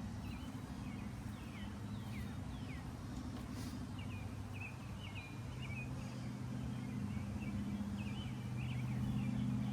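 A steady low engine hum runs throughout, growing a little louder near the end, while small birds chirp repeatedly in short, falling notes.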